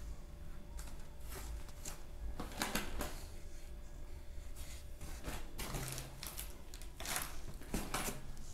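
Plastic wrapping and cardboard rustling and crinkling as fur sandals are handled in their box, in irregular bursts, loudest about two and a half seconds in and again around seven and eight seconds in.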